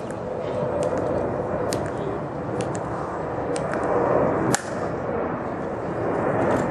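Metal-tapped heels of a Tomb of the Unknown Soldier sentinel's dress shoes clicking on the stone plaza in slow, measured steps, about one a second, with a sharper, louder heel click about four and a half seconds in as he halts at attention.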